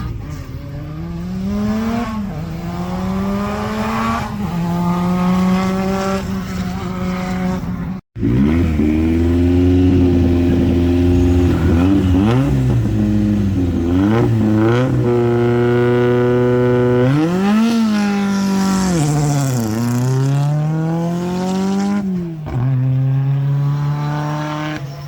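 Historic rally cars' engines revving hard at a stage start. After an abrupt cut about a third of the way in, one engine is blipped, held at steady high revs, then accelerates away with a rising pitch broken by two upshifts.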